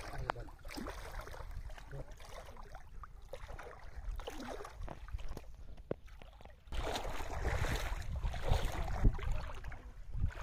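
Shallow river water sloshing and splashing around a wader's legs, with a few small clicks. About two-thirds of the way in it gives way abruptly to louder wind rumbling on the microphone over lapping water.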